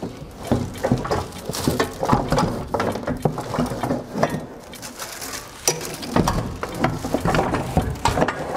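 Loose metal power-tiller parts being handled and set down, with irregular clinks, knocks and rattles.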